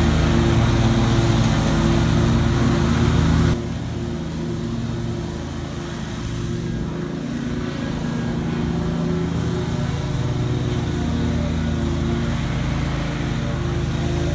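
Great Dane Super Surfer 52-inch stand-on mower's 23 hp Kawasaki engine running steadily under load as it cuts tall grass. After about three and a half seconds the sound drops abruptly to the same mower heard farther off and quieter.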